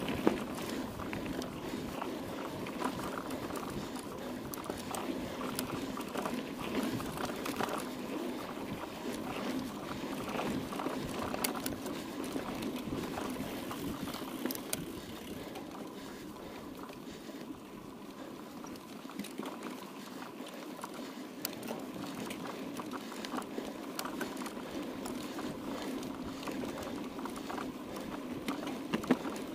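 Mountain bike being ridden off-road: steady tyre and riding noise with rattling and scattered sharp clicks and knocks from the bike.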